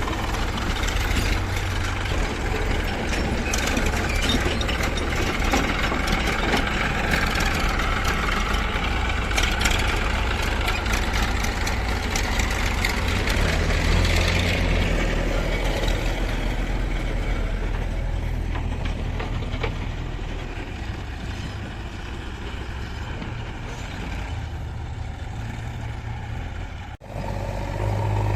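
Diesel engines of a JCB 3DX backhoe loader and a farm tractor running steadily while the backhoe loads mud. The engine note shifts about halfway through, and the sound cuts out for a moment near the end.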